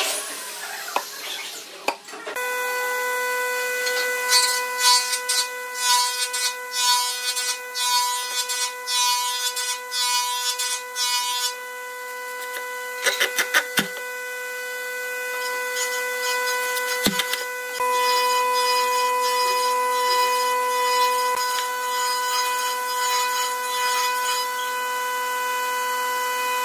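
Workshop handling noise as metal drawer slides are fitted into pine cabinet compartments: a run of scraping and rubbing strokes, then a few sharp clicks. A steady high whine runs underneath.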